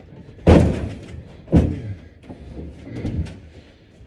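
Heavy wooden furniture thudding and knocking as it is shifted and set down: two loud thuds about half a second and a second and a half in, then lighter knocks.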